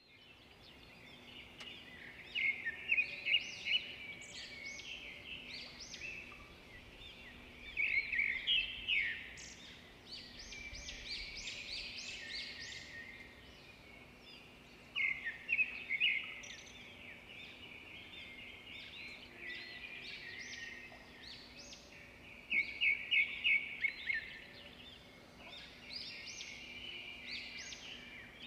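Small songbirds chirping and calling. Scattered short chirps are broken by four louder runs of rapid chirps.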